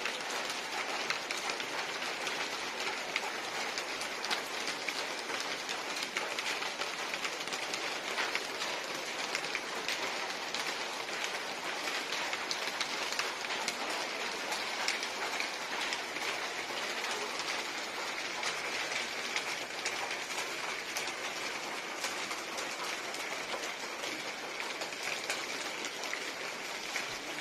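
Heavy rain falling steadily: a dense, even hiss with many small sharp drop ticks.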